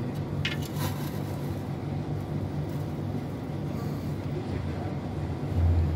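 A steady low mechanical hum, with a few faint clicks about half a second in and a louder low swell near the end.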